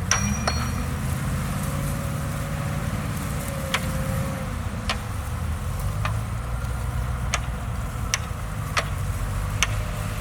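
Komatsu crawler bulldozer's diesel engine running steadily, with sharp metallic clanks every second or so at irregular intervals.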